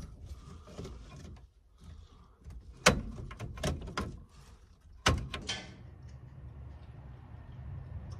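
Clicks and clunks of metal and plastic parts being handled as a gauge is fitted under a car's dashboard, the sharpest about three seconds in and again about five seconds in, followed by a low steady hum.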